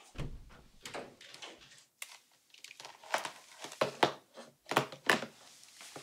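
A low thump at the start, then a run of irregular sharp clicks and knocks from hands working a laptop at an office desk.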